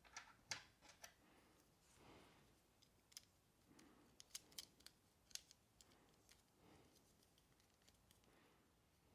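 Quiet, irregular sharp snips and clicks of plastic model-kit parts being cut and handled, with soft rustling between them; clusters of snips come near the start and again around the middle.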